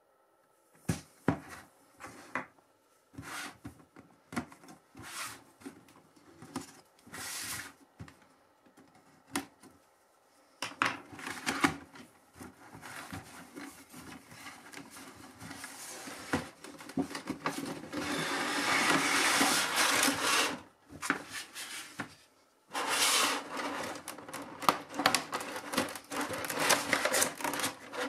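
Cardboard figure box being handled and opened by gloved hands: scattered taps and scrapes at first, then sliding and rubbing of the packaging. In the last few seconds the clear plastic blister tray crackles as it is pulled out and handled.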